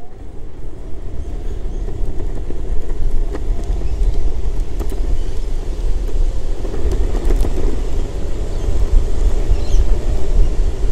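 Electric skateboard (Viril V1 on its original wheels and motors) at full speed: wheels rumbling on the road and wind buffeting the microphone, building over the first couple of seconds as it accelerates, then holding steady.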